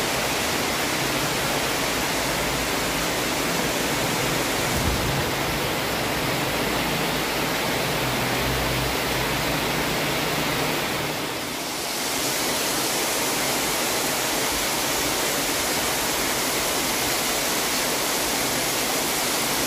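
Monsoon rain falling steadily, a dense even hiss that dips slightly for a moment about eleven seconds in.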